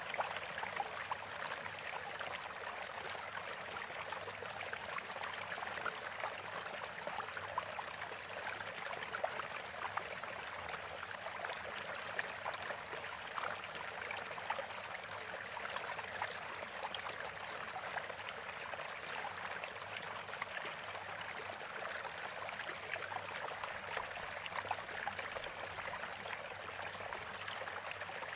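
Steady running water, trickling and splashing, with a constant level throughout.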